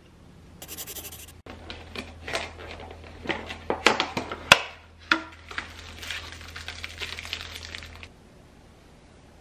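Thin plastic packaging crinkling and crackling as a bunch of small bananas in plastic wrap is handled and lifted out of its bag. The crackles are irregular, with the sharpest snaps about four to five seconds in, and they stop abruptly about eight seconds in.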